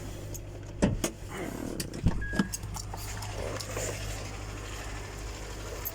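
Honda Accord engine idling steadily, an engine the owner says is knocking. A few sharp clicks and knocks, about one second and two seconds in, as the hood is released and opened.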